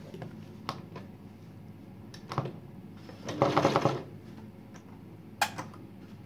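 Janome 802 sewing machine making a short burst of rapid stitching a little past halfway through, between a few sharp clicks as the machine and embroidery hoop are handled.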